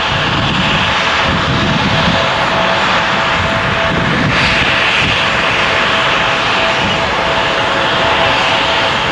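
Turbofan engines of an Embraer E-Jet airliner on final approach, a steady jet noise with a thin held tone through it.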